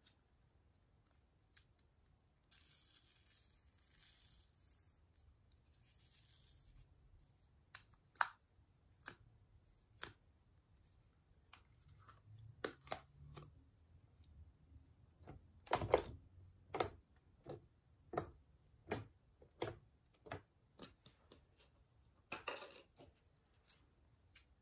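Plastic slime tubs being opened and handled over a plastic storage bin: a few seconds of faint scratchy rustling, then a string of sharp plastic clicks and taps, roughly one a second, loudest a little past the middle.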